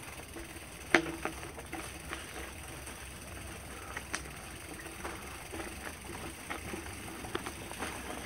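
Mountain bike rolling over a bumpy dirt trail: tyres on dirt and leaves under a steady low rumble, with the frame and parts rattling and sharp knocks as the wheels hit bumps, the loudest about a second in.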